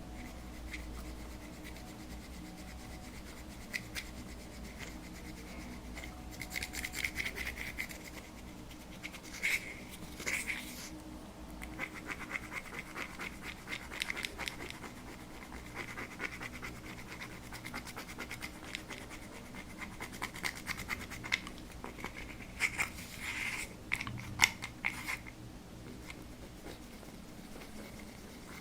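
Slime being squished and stretched by hand, giving bursts of many small sticky clicks and crackles with quieter gaps between.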